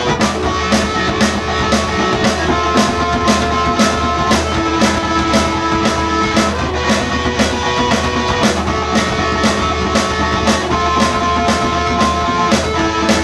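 A rock band playing live in a small room: electric guitar and bass guitar through small amps over a drum kit keeping a steady beat, with held guitar notes.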